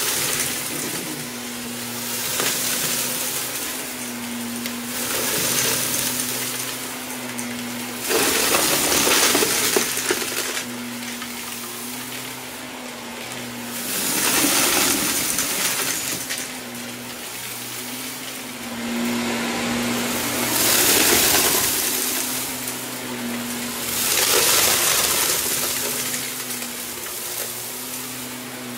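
Shark upright vacuum cleaner running steadily with a constant motor hum. Every few seconds a loud rushing rattle surges up as it is pushed into the mess and sucks up small hard bits of debris.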